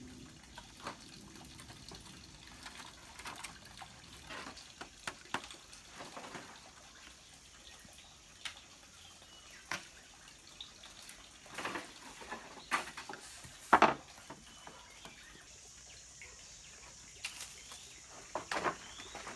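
Scattered hollow knocks and clacks of green bamboo poles being handled and set against each other on a roof frame. A sharper, louder knock comes about two-thirds of the way through.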